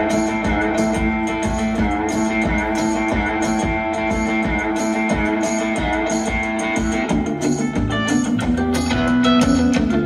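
Guitar music with a steady beat played through a 1970s Tesla 1PF 068 96 speaker box with a Tesla ARE 667 full-range driver, as a sound test with a bass-heavy track; deeper bass notes come in about seven seconds in.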